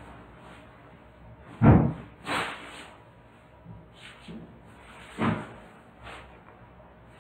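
Handling knocks and thumps as objects are picked up and set down on a hard surface, a handful of irregular hits. The loudest comes about a second and a half in, with others near two and a half and five seconds.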